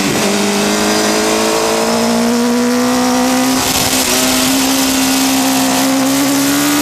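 Onboard sound of a Honda CBR600 F4's inline-four engine running at high revs on track, its note climbing slowly as it pulls, with brief dips near the start and about halfway through. A steady rush of wind runs underneath.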